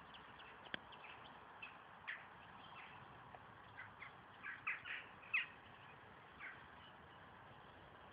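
Birds chirping: scattered short, downward-sliding chirps, most of them bunched together about halfway through, with one sharp click near the start.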